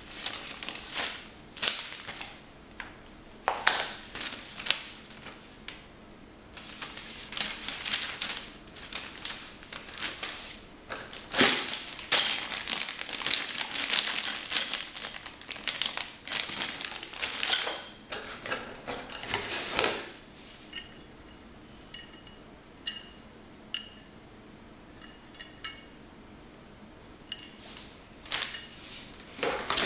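Hands rustling and crinkling packaging: paper manuals, a plastic parts bag and a cardboard box, in irregular bursts. Later the bursts give way to sparse small clicks and light clinks, then the rustling picks up again near the end.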